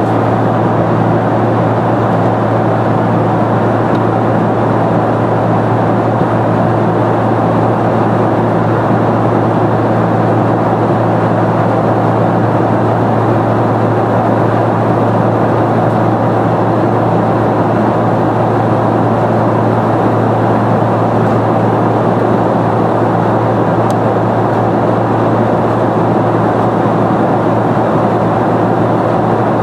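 Steady cabin noise of a Boeing 747-400 in flight, heard from a window seat: an even rush of airflow and engine noise from its four GE CF6-80C2 turbofans over a constant low drone.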